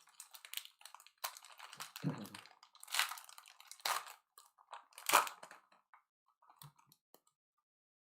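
Foil trading-card pack wrappers crinkling and tearing in short bursts as packs are opened and the cards handled, with light clicks and taps, dying away about seven seconds in.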